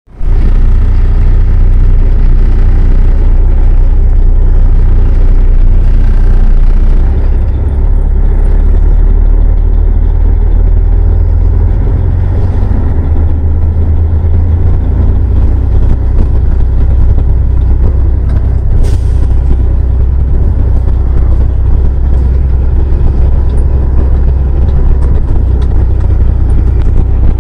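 Engine of a small riding vehicle running, heard as a loud, steady low rumble throughout.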